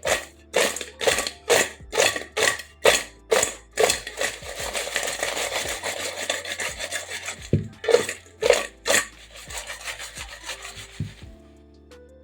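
Rhythmic rasping, scraping strokes about two a second, running into a continuous rasping rustle for a few seconds, then a few more strokes.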